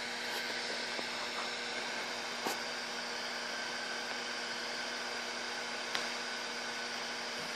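Steady hiss of a multi-jet brass stove burner's small blue flames burning HHO gas and hexane, over a steady low hum. Two faint ticks, about two and a half and six seconds in.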